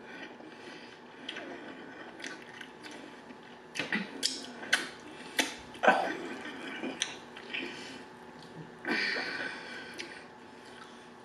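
Crispy fried chicken being torn apart by hand and chewed close to the microphone: crackling crunches and wet chewing sounds. The sharpest crackles come about four to six seconds in, and a longer crackle of about a second comes near nine seconds.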